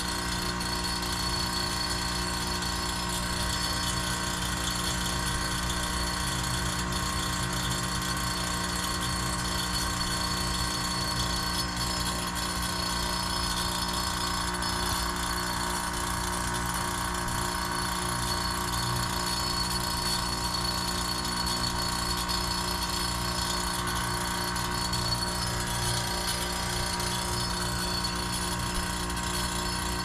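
2012 Goodman heat pump outdoor unit running steadily partway through a defrost cycle, a constant hum with several fixed tones.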